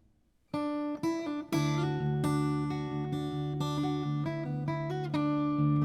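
Six-string acoustic guitar played fingerstyle without a pick in an alternate tuning: plucked notes begin about half a second in and build into an instrumental piece, with notes ringing over a sustained bass.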